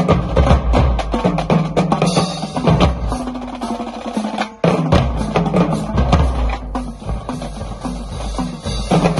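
Marching drumline playing: snare drums rattling over pitched tenor and bass drum notes, with cymbals. About four and a half seconds in the playing breaks off for a moment, then the full line comes back in.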